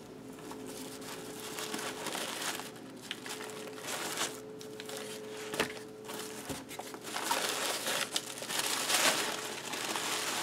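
Brown kraft-paper wrapping crinkling and rustling as twine is untied and the paper is pulled open by hand, the rustling getting louder and busier in the second half.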